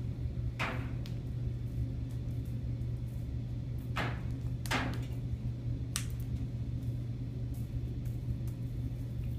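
A steady low mechanical hum, with about four short noises that sweep downward in pitch scattered over it.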